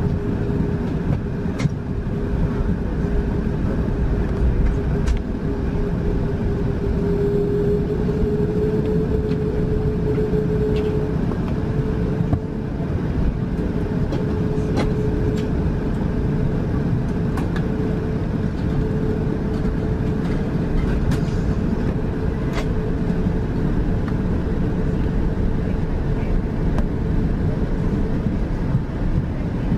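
Airbus A380 taxiing, heard from inside the cabin: its Rolls-Royce Trent 900 engines running at low taxi thrust as a steady rumble with a steady whine through it, plus a few faint clicks and rattles.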